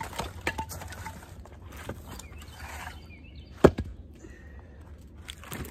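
A single sharp axe blow splitting a small piece of firewood about two-thirds of the way in, with a few lighter knocks of wood before and after.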